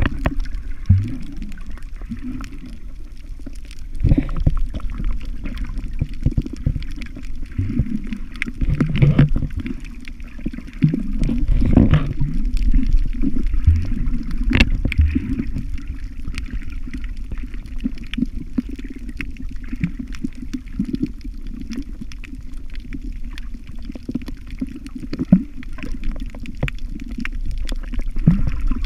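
Muffled underwater sound picked up by a camera held below the surface: a steady low water rumble with gurgling swells and occasional sharp knocks.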